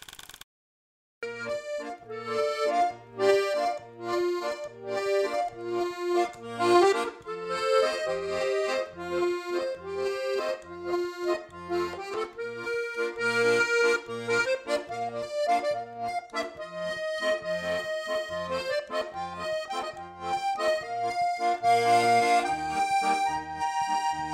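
Accordion music: a lively melody over a steady bass beat, starting about a second in after a brief silence.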